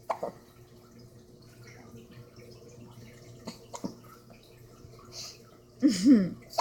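A baby's wet mouth sounds: a few small, sudden pops and clicks as she blows spit bubbles. Near the end comes a short, louder two-note squeal from her.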